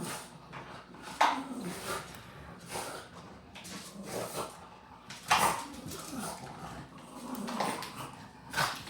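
A dog whimpering in short whines, with a few sharp clicks about a second in and again near the middle.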